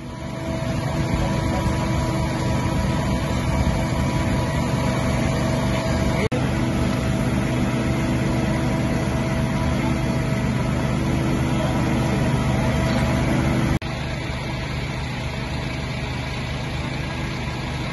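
Fire engines' diesel engines idling, a steady low hum with a constant tone. The hum drops out briefly twice.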